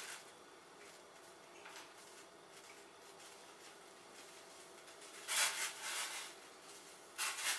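Soya chaap pieces dropped into water in a steel pot, making two splashes about two seconds apart, the first about five seconds in and the second near the end.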